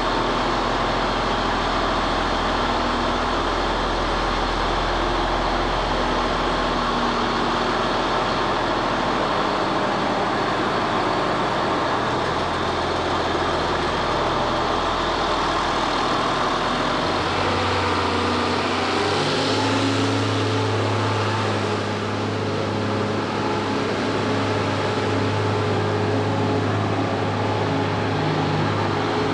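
Case IH 9350 Steiger tractor's diesel engine running. The note is low and steady at first, then about two-thirds of the way through the engine speeds up and its note rises and holds as the tractor pulls away.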